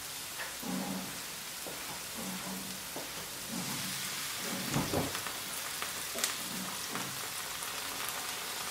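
Sliced onions sizzling in butter in a frying pan: a steady crackling hiss, with a few light clicks of a spoon in the pan.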